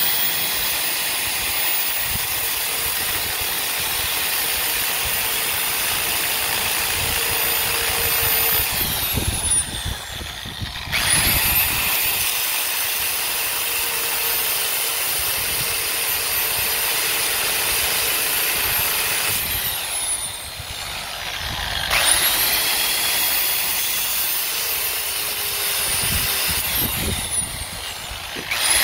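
DeWalt angle grinder with a cutting disc cutting steel at a conveyor roller's seized bearing end, which is hard to remove otherwise; a steady high whine. The grinder winds down and spins back up about 10 and 20 seconds in, and again near the end.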